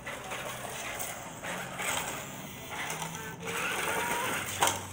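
Small electric drive motor and gears of a toy-grade Double E RC rock crawler running as it drives over rough concrete, with a sharp click about four and a half seconds in.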